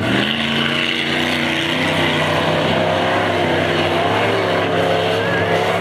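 Eight-cylinder off-road pickup truck's engine running hard under throttle through a dirt slalom, its pitch steady at first, then rising and falling a little from about two seconds in as the driver works the throttle.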